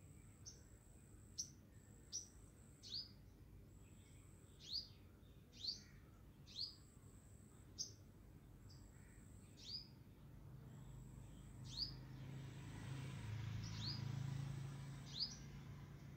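A small bird calling over and over, every second or two: each call is a brief high note and then a quick falling chirp. From about ten seconds in, a low rumble swells in the background and fades again near the end.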